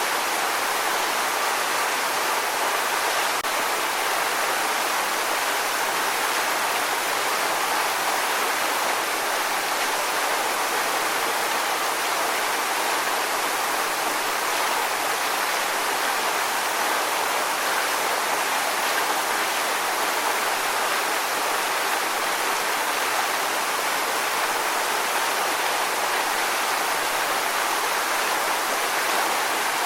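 Waterfall: water pouring and splashing in a steady, even rush, mostly a bright hiss with little low rumble.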